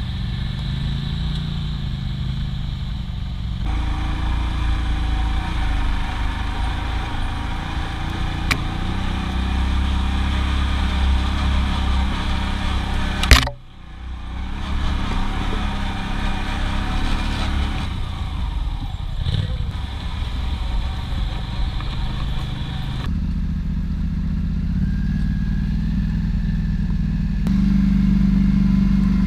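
Quad bike (ATV) engine running steadily while riding, heard from on board. There is one sharp, loud knock a little before halfway, after which the sound briefly drops away.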